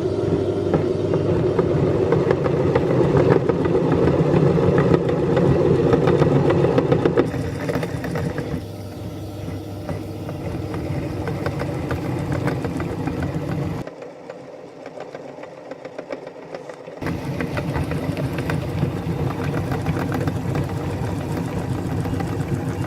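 Electric meat grinder running steadily as it grinds soap, a motor drone with a dense rattle. It goes much quieter for about three seconds near the two-thirds mark, then runs again at full level.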